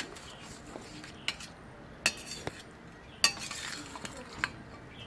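Metal serving spoon clinking and scraping against a stainless steel bowl and plate while curry is ladled out. About five sharp, ringing clinks, the loudest about three seconds in.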